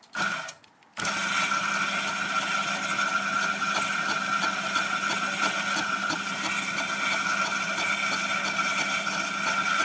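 Home-built Gingery milling machine starting about a second in, after a brief short sound, and then running steadily with a high, even tone and faint regular ticking, turning a fly cutter at very slow speed.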